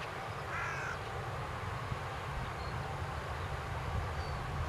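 Distant Boeing 737's jet engines running as the airliner rolls along the runway: a steady low rumble with a hiss above it. A bird calls briefly about half a second in.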